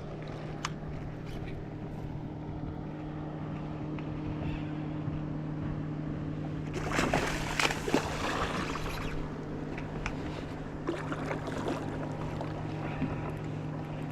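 Steady low hum of a boat's motor running, with a loud noisy burst, like splashing water, about seven seconds in that lasts a couple of seconds.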